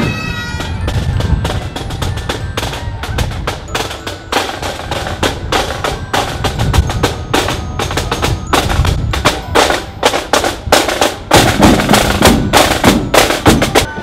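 Pipe band playing on the march: snare drums rattle out a fast, dense rhythm with bass drum beats, over the sound of the bagpipes.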